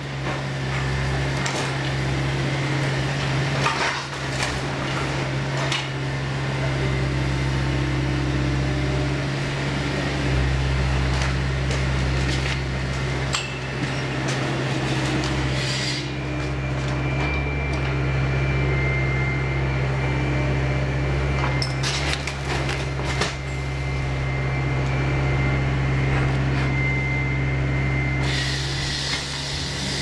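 KATO hydraulic excavator's engine running steadily while its demolition grapple pulls apart a wooden building, with scattered knocks, cracks and splintering of timber.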